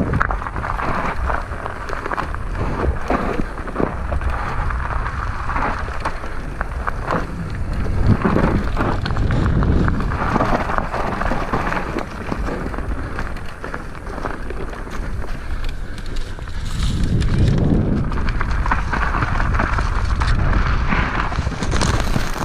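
Mountain bike tyres crunching over dry leaves and dirt on a descent, with a steady low rumble and many small clattering knocks. It gets louder about eight seconds in and again from about sixteen seconds.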